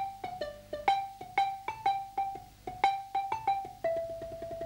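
Wooden xylophone struck with mallets, playing a short melody of separate ringing notes. Near the end it goes into a fast roll on a single note.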